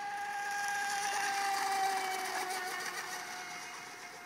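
Radio-controlled rigger race boat running at speed across a lake, its motor a steady high whine that swells, then drops slightly in pitch and fades as the boat moves away.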